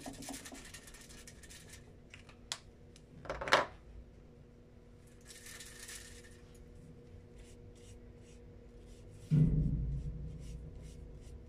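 Marker tip and a wet paintbrush rubbing on crumpled aluminium foil used as a paint palette: scratchy crinkling and rubbing with a few small clicks, a short sharp crinkle about three and a half seconds in, and a dull thump about nine and a half seconds in.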